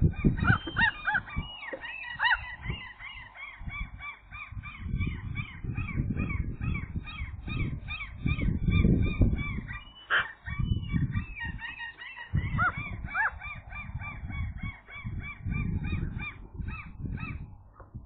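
Common gulls calling: a long, fast run of high, repeated notes, several a second, over bursts of low rumbling noise, with one sharp knock about ten seconds in.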